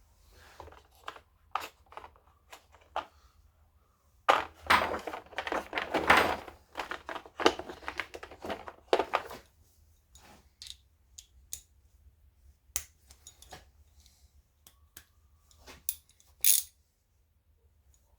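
Metal hand tools and small parts clinking and knocking on a workbench while a chainsaw is being taken apart, with a stretch of dense rattling and clattering about four to nine seconds in.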